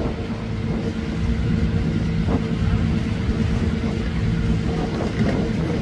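Fishing boat's diesel engine running steadily under way, an even, constant drone.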